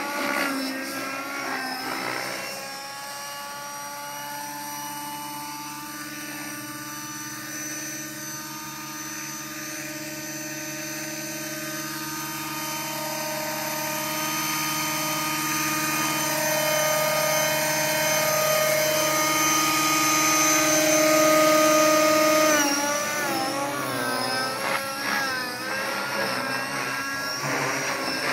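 Align T-Rex 600 radio-controlled helicopter flying: a steady, many-toned whine of motor and rotor blades that slowly grows louder through the middle, then wavers up and down in pitch over the last few seconds as it manoeuvres.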